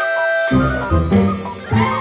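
Cartoon music cue for the change from day to night: held high ringing notes, then a bass line comes in about half a second in with a bouncing rhythm.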